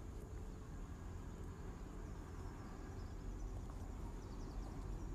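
Quiet outdoor ambience: a steady low rumble with faint high chirps in the second half.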